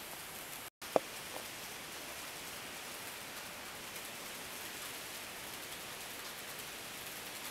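Steady light rattle of N-gauge model trains running on track, heard as an even hiss. It is broken by a brief dropout just under a second in, followed by one sharp click and a fainter one.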